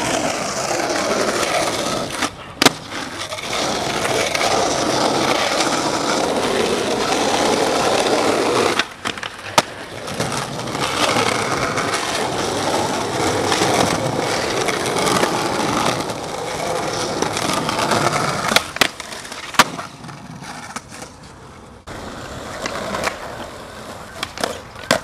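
Skateboard wheels rolling hard over stone pavement and grinding along a granite ledge, broken by a few sharp cracks of the board popping and slapping down.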